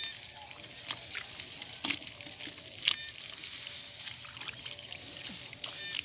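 Hands splashing and sloshing in shallow muddy rice-paddy water while groping for fish, with a few sharp little splashes among the trickling.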